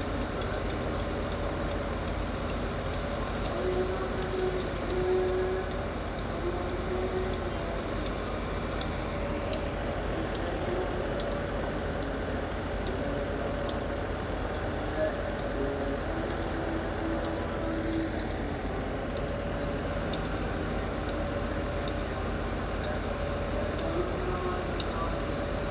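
A stationary commuter train running at idle at the platform: a steady engine hum with a few held tones, and a light high ticking about once a second through much of it.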